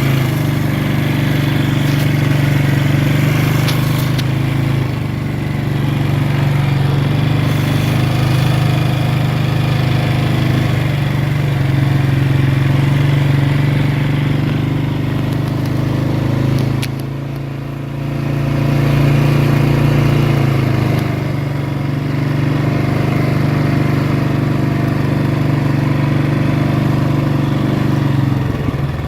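Polaris 4x4 ATV engine running steadily under way, easing off briefly a few times, most plainly about seventeen seconds in, before picking up again.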